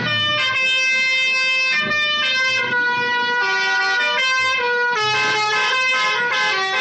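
Telolet bus horn playing a tune: a musical multi-tone air horn sounding a run of notes that change pitch about every half second.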